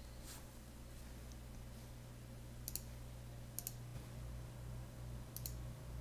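Faint, scattered clicks of china plates touching one another as a stack is handled, over a low steady hum.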